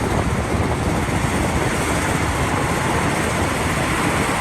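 Loud, steady engine and machinery noise of a heavy vehicle, an edited-in sound effect that starts and cuts off abruptly.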